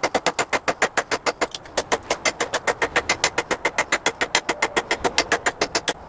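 Rapid, even hammer blows on hot steel at the anvil, about seven a second, smoothing out the hammer marks on the forged piece. The blows stop abruptly at the end.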